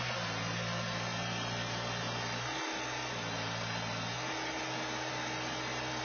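New Holland skid-steer loader's diesel engine running at a steady pitch, a constant drone.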